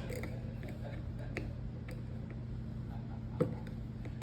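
Small scattered clicks and ticks of a T6 Torx screwdriver working the pocket-clip screw on a folding knife, with one sharper click about three and a half seconds in, over a steady low hum.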